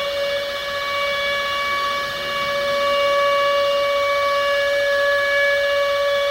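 Civil defence attack warning siren sounding a nuclear attack warning, holding a steady high wail at one pitch with strong overtones.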